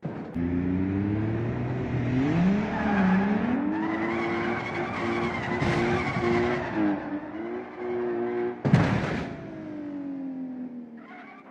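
A racing car engine revving, its pitch rising and falling. About nine seconds in comes a short loud screech like a skid, and then the engine note falls away.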